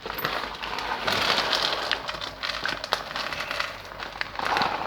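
Irregular crackling and rustling noise with scattered sharp clicks, loudest from about a second in to about three seconds in.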